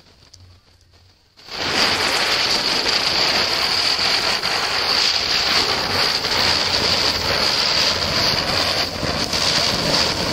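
Ashoka-brand ground chakkar (spinning firework) going off: a faint fuse fizz, then about a second and a half in it catches into a loud, steady hiss with a high whistling tone through it as it spins and sprays sparks.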